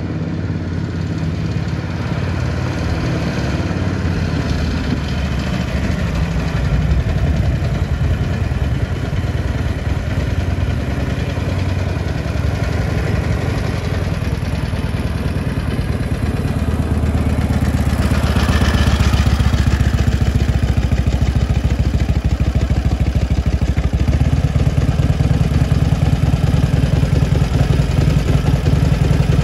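1936 Harley-Davidson VLH's side-valve (flathead) V-twin engine running as the motorcycle rides slowly around, growing louder a little over halfway through. Near the end it settles into an idle with a steady, even pulsing beat.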